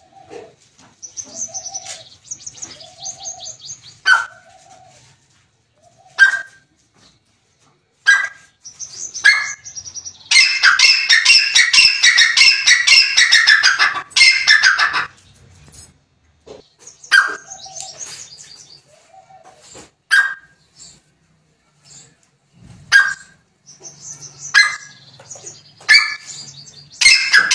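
Grey francolin calling. Soft short chirps and notes come first, then about ten seconds in a loud run of rapid, ringing repeated notes lasts some five seconds. More scattered notes follow, and a second loud run starts near the end.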